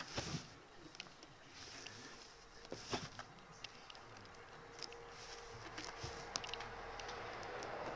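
Faint rustling and light scratching of a kitten's claws and body on a fabric sofa as it wriggles and paws, with scattered small ticks.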